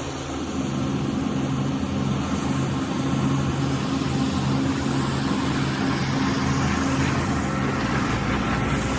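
Kobelco excavator's diesel engine running steadily at working speed, growing slightly louder just after the start.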